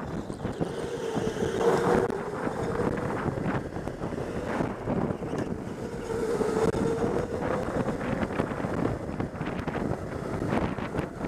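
Go-kart running at speed, heard onboard as a steady noisy rumble with wind buffeting the microphone. A faint whine rises and falls twice.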